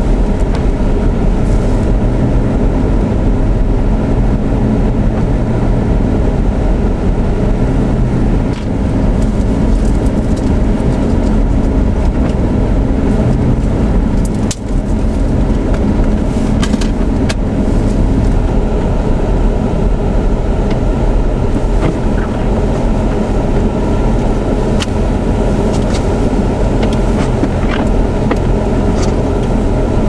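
Steady low rumble of a car driving on a snow-covered highway, heard from inside the cabin: engine and tyre noise on snow, with a few faint ticks here and there.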